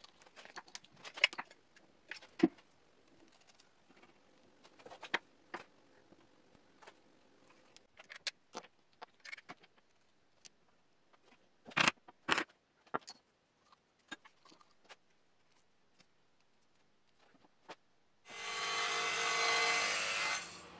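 Light clicks and knocks of steel bolts and coupler nuts being handled on a wooden beam, with two louder knocks about 12 seconds in. About 18 seconds in, a table saw cutting plywood runs loudly for two to three seconds and cuts off abruptly.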